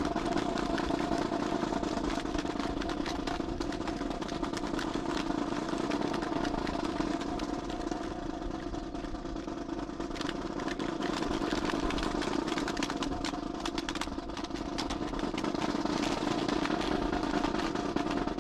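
Drill rifles handled in unison: scattered sharp clacks of hands striking rifle stocks and fittings, over a steady engine-like drone.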